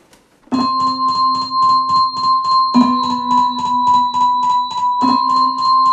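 Horror title music: a held electronic chord that starts suddenly about half a second in, pulsing quickly about five times a second and struck afresh every two seconds or so.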